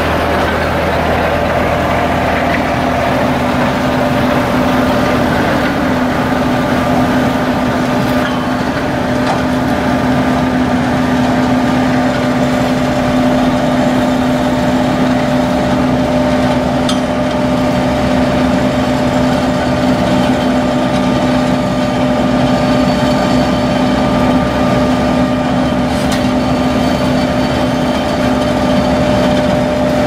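Sumitomo HA60C asphalt paver's diesel engine running steadily while paving: a constant drone with a steady whine over it.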